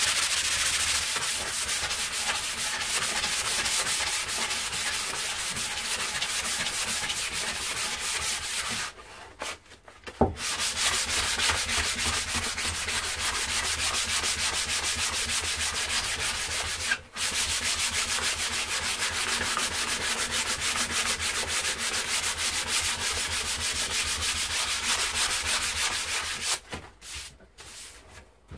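Sandpaper rubbed by hand in quick back-and-forth strokes along a new oak handle, smoothing the wood. The rasping stops briefly about a third of the way in and again just past halfway, then dies away near the end.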